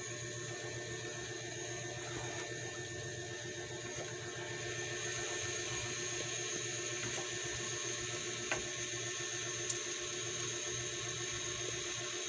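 Cream sauce heating in a nonstick pot while a wooden spatula stirs it: a steady hiss with a faint low hum, and two light clicks about two-thirds of the way through.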